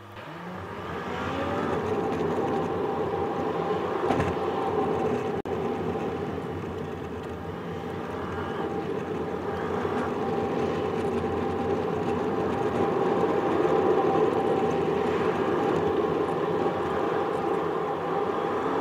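Car's own driving noise heard from inside the cabin: engine and tyre rumble rising as the car pulls away in the first couple of seconds, then a steady hum while cruising.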